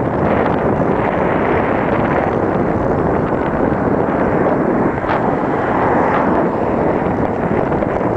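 Wind buffeting the microphone of a camera on a moving bicycle: a loud, steady rushing noise.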